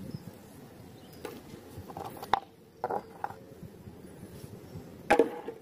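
Mud-coated plastic toy animals being picked up and handled on a tray: scattered short knocks and clacks of plastic on plastic, about half a dozen, the loudest about five seconds in.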